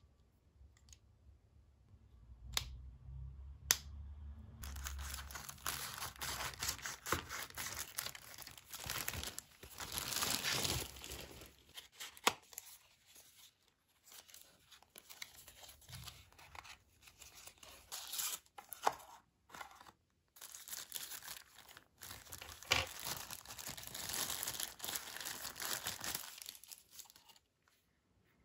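Cardboard packaging being torn and pulled open by hand, with rustling and crinkling of the box and its inner packing, in irregular bursts for most of the time. A few sharp clicks come in the first few seconds.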